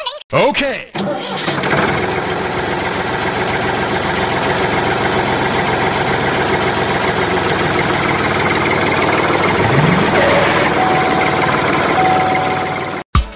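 Mini tractor engine starting, then running steadily for about twelve seconds before it cuts off suddenly near the end.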